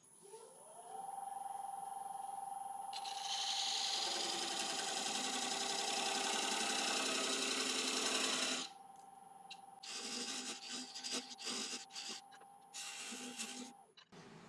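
Wood lathe spinning up, its motor whine rising over the first second and then holding steady, while a turning tool cuts the laburnum bowl. First there is a long, continuous shaving hiss, then several shorter cuts in bursts. The motor whine stops near the end.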